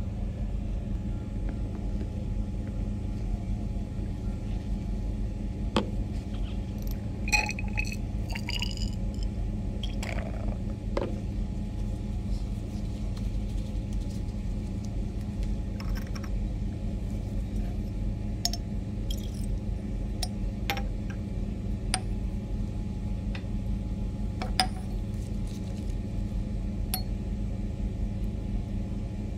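Steady low hum of a lab room's ventilation, with occasional light clinks and taps of glassware being handled, a short cluster of ringing clinks about seven to eleven seconds in.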